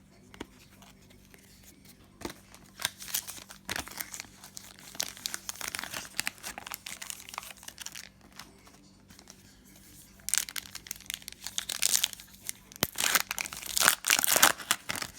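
Plastic-foil trading card pack wrappers crinkling and being torn open, in two spells of irregular crackling, the louder near the end.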